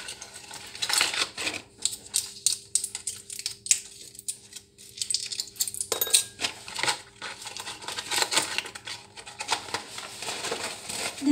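Quick, irregular light clicks and taps from hands handling a small cardboard medicine box and small items at a kitchen counter, over a faint steady hum.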